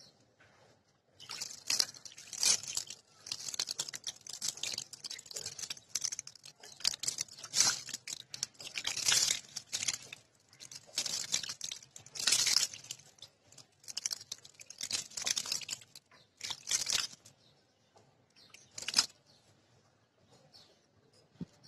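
Water poured in irregular splashes onto wet, muddy soil, in bursts with short pauses, stopping near the end.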